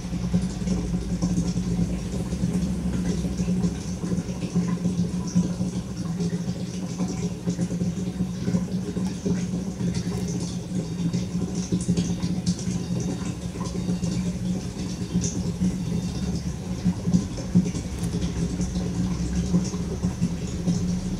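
A steady low mechanical hum, like a motor running, with scattered light clicks and rattles over it.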